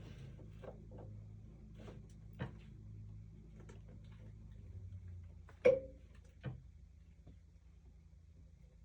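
A drilling machine's motor runs with a low hum while an aluminium hand wheel is drilled, with scattered light clicks and knocks of metal. A sharp knock comes about five and a half seconds in, a smaller one a second later, and then the hum fades away.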